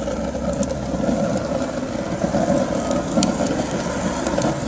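Homemade rocket stove burning at its first test firing: a steady rushing rumble as the draft pulls the flame into the burn tunnel, with a few faint crackles such as one about three seconds in.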